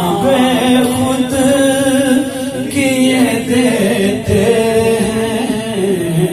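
A man singing a naat, an Urdu devotional poem in praise of the Prophet, without instruments, heard through a microphone. He draws out long, wavering held notes.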